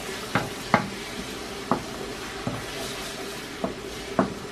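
Wooden spoon stirring beaten eggs and onions in a nonstick frying pan, knocking against the pan about six times at uneven intervals over a steady sizzle of frying.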